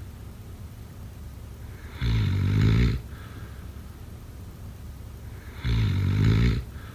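Snoring: two loud, rattling snores about a second long each, some three and a half seconds apart, each followed by a fainter breath.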